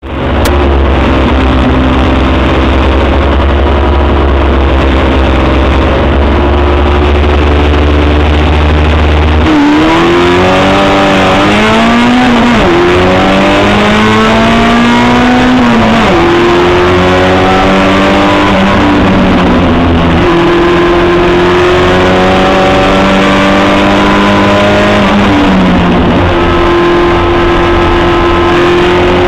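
Promocional 850 race car's engine heard from the onboard camera: it holds a steady note for about nine seconds, then accelerates hard, the pitch climbing and dropping back again and again as it shifts up through the gears.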